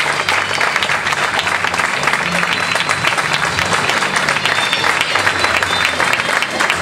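Audience applauding steadily, a dense mass of clapping, with music playing underneath.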